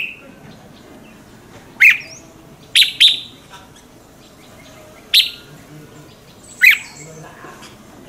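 Red-whiskered bulbul calling: six short, sharp notes at irregular intervals.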